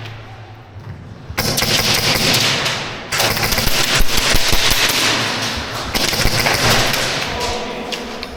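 Airsoft gun firing in long full-auto bursts, starting about a second and a half in, with brief pauses around three and six seconds in.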